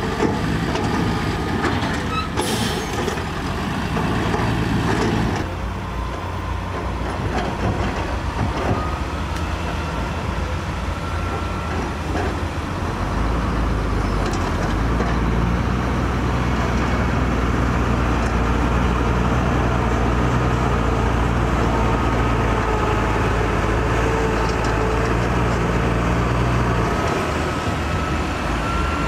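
Heavy construction vehicle's diesel engine running, growing louder and deeper about halfway through and easing back near the end.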